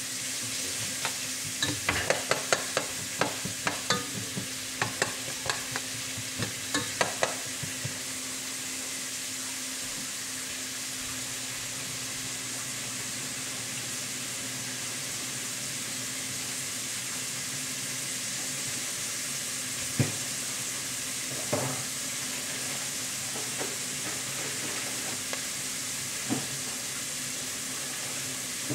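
Chopped red onions sizzling as they fry in oil in a pot, a steady hiss throughout. A quick run of clicks and taps from stirring in the pot for the first several seconds, then a few single knocks later.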